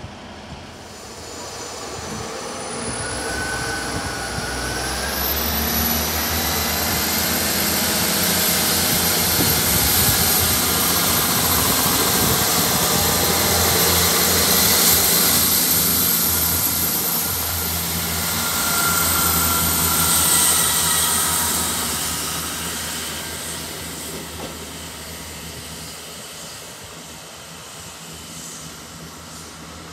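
South Western Railway diesel multiple unit pulling away from the platform, its engines working hard as it accelerates. The engine note builds as the train passes close by, then fades as it draws off down the line, with a couple of brief high squeals along the way.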